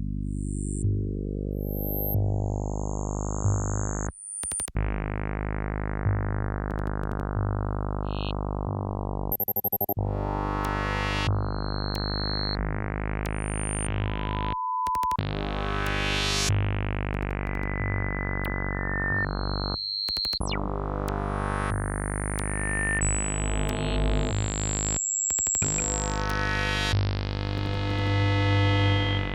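Oscilloscope music: synthesizer tones whose waveforms are shaped to draw pictures when displayed. A steady low buzzy drone brightens in slow rising sweeps, each cut off abruptly, about every five seconds. Short high beeps are scattered over it.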